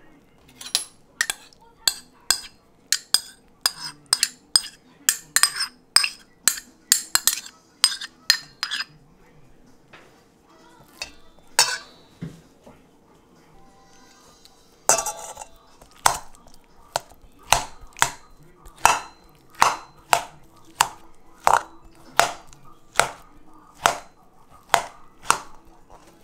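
Metal spoon clinking against a stainless steel bowl: a quick run of clinks for the first nine seconds or so, then after a pause, steady strokes a little over once a second as boiled potatoes are mashed with the spoon.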